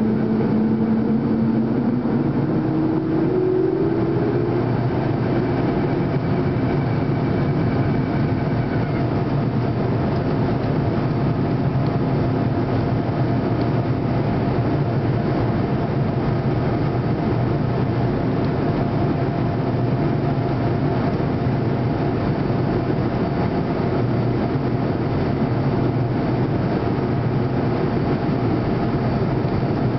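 Steady engine and airflow noise inside the cabin of a BAe Avro RJ85 climbing after takeoff, its Honeywell LF507 turbofans running just outside the window. A low hum steps up in pitch about three seconds in and fades, and a higher whine stops about nine seconds in.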